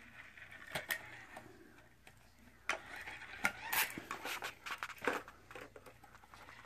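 Scattered light clicks and taps as small plastic friction toy trucks are handled and pushed against a cardboard ramp.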